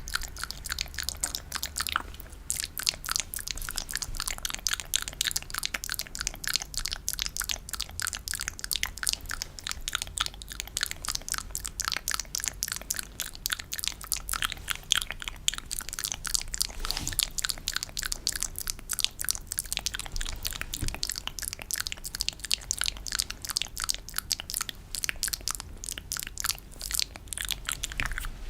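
Close-miked ASMR trigger sounds: a rapid, continuous stream of wet, sticky clicks, many a second and irregular.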